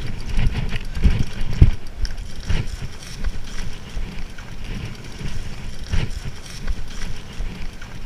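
Loaded gravel bike being pushed down a rough, rocky path, with irregular knocks and rattles as the wheels, frame and bags jolt over stones, and footsteps on the loose ground.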